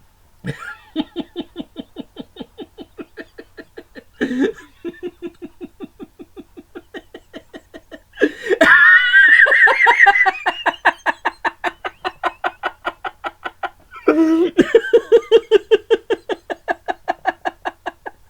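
A man imitating a woman's laugh: long runs of rapid, even ha-ha pulses, about five a second, in four bouts with short gasping in-breaths between them. The bout about halfway through is the loudest and highest-pitched.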